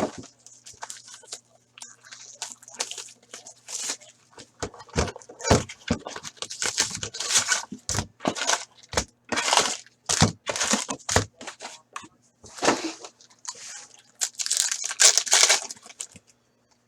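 Plastic and foil packaging of a box of hockey trading cards being torn open and crinkled, in many quick, uneven bursts, over a faint steady hum.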